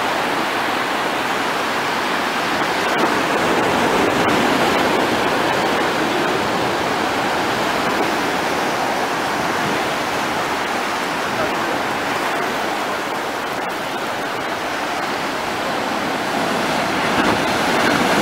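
Ocean surf breaking and foaming over a rock shelf: a steady rush of churning seawater.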